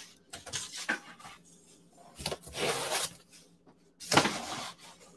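Plastic wrap and styrofoam packing rustling and scraping as hands work at a boxed heat press, in three bursts about a second long.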